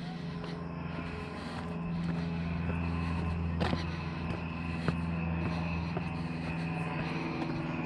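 Steady, distant engine drone, with a few footsteps crunching on a gravel path.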